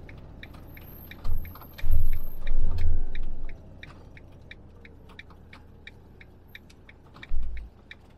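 A motorhome's turn indicator ticking steadily, about three ticks a second, heard inside the cab. Loud low rumbling thumps come three times in the first few seconds and once more near the end.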